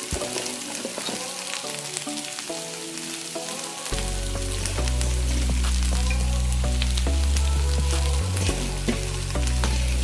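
Cabbage and carrot sizzling and crackling in a little hot oil in a saucepan as they stir-fry. Background music plays underneath, and its bass line comes in about four seconds in and becomes the loudest sound.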